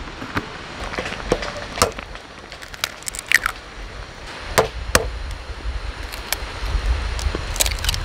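Eggs handled in a plastic egg case and cracked into a pot of ramyeon: scattered sharp clicks and knocks, the loudest two close together a little past halfway, over a low rumble that comes in about halfway through.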